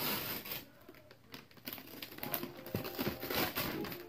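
Rustling and crinkling of a shiny plastic gift bag as a hand rummages inside it to pull out the gift, irregular and growing busier about halfway through.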